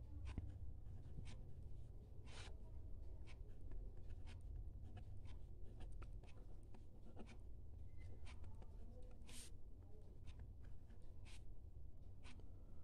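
Handwriting with a pen: short, irregular scratching strokes and taps while a calculation is worked out, over a faint steady low hum.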